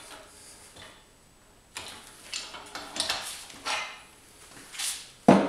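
Metal clinks and clanks of a manual tire changer's duckbill mount/demount head being taken off its bar: a scattered series of short knocks, the loudest near the end.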